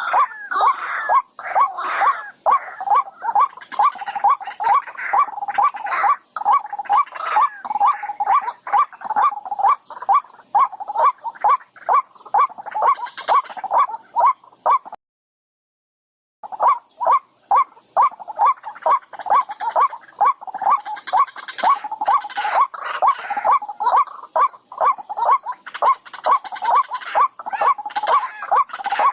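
An animal calling over and over in short, rapid cries, about three a second. The calls cut out completely for about a second and a half midway, then carry on.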